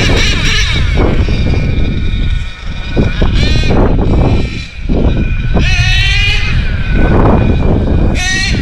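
HPI Savage X4.6 nitro RC monster truck's small two-stroke nitro engine revving hard and backing off several times, its high buzzing pitch sweeping up and down, over a heavy low rumble.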